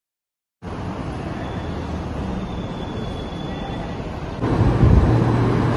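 Steady background noise of a busy covered transit concourse, starting abruptly. About four seconds in, it grows louder with a deeper steady hum.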